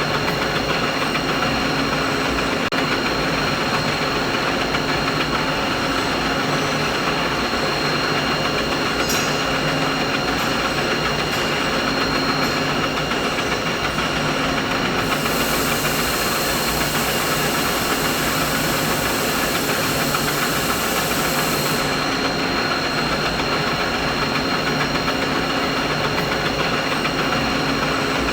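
Steady machine noise: a constant hum with a few steady whining tones over it. About halfway through, a high hiss joins for several seconds and then stops.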